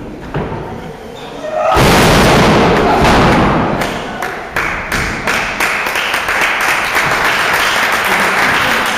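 Heavy thud of two wrestlers crashing down from the top rope onto the ring canvas about two seconds in, followed by crowd noise and clapping.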